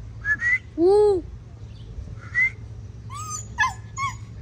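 A small tan wild dog calling: a string of short, high, whistle-like yelps and whines. About a second in comes one longer note that rises and falls, the loudest of them.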